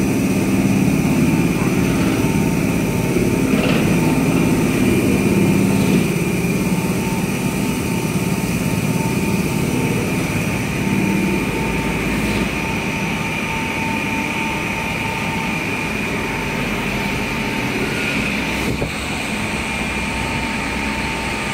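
Factory machinery on a fiber cement board production line running steadily, a continuous drone with a steady high whine over it. The low rumble is heavier for the first few seconds, then eases.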